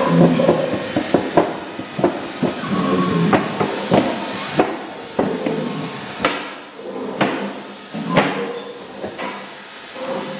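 Experimental noise music: irregular sharp knocks and clatter, with brief pitched tones scattered among them.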